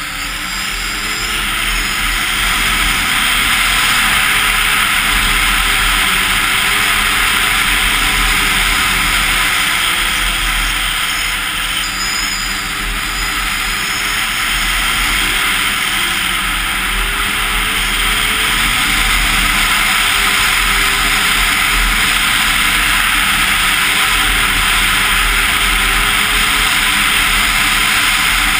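Arctic Cat Crossfire 1000 snowmobile's two-stroke twin running at trail speed under a steady rushing noise, its pitch drifting up and down with the throttle. It gets louder over the first few seconds as the sled speeds up.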